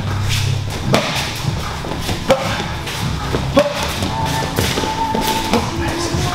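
Sharp thuds of strikes landing during MMA pad and striking drills, five of them roughly a second or more apart, the loudest about halfway through, over background music.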